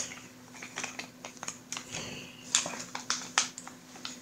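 Resin miniatures in small plastic bags being handled: a scatter of light clicks and crinkles, busiest about two and a half to three and a half seconds in.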